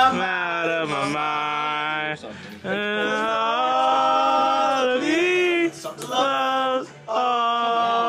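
A man singing a slow melody in long held notes, each lasting a second or two, with short breaks between them.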